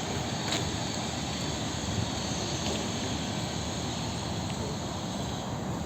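Torrential rain falling, a steady, even rushing noise with a few faint ticks.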